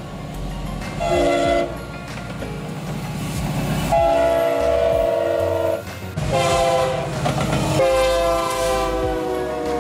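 Air horns of passing diesel freight locomotives: a short blast about a second in, then several longer blasts, the chord changing between some of them, over the low rumble of the moving train.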